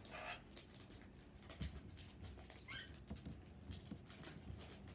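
Faint rustling and light clicks of Pokémon trading cards and a card binder being handled, with one short rising squeak about halfway through.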